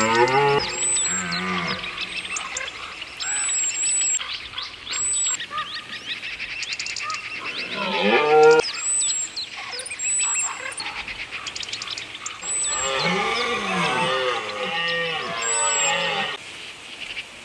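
Red deer stags roaring, the rutting call: deep, drawn-out bellows, a short one at the start, another around the middle and a longer run of several roars near the end. High bird chirps repeat faintly in the background.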